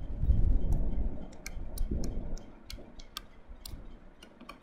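Stylus tip tapping and clicking on a tablet screen during handwriting: a scatter of sharp, irregular ticks, with low dull bumps in the first two seconds or so.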